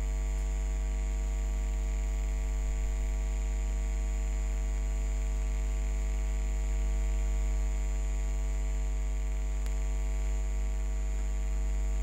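Steady electrical mains hum with a faint, steady high-pitched whine above it.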